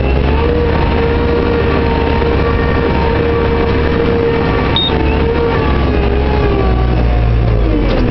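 JCB 532-120 telehandler heard from inside its cab: the engine running steadily with a low rumble and a whine that holds one pitch, then wavers and drops near the end as the machine manoeuvres.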